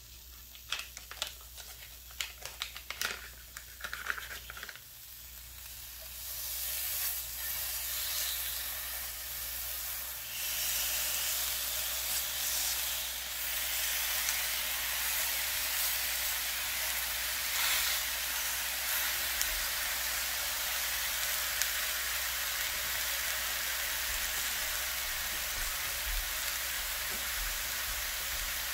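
A few light clicks and taps in the first seconds, then pork sausages and bacon start sizzling in a hot cast-iron skillet. The sizzle builds to a steady hiss about six seconds in and grows again a few seconds later.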